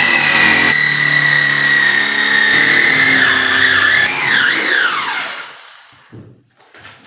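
Electric drill running at speed, spinning a wooden stick against a saw blade fixed in a hole so the blade shaves it round. The motor's pitch dips and recovers a few times under load, then falls as the drill winds down about five seconds in, followed by a few faint knocks.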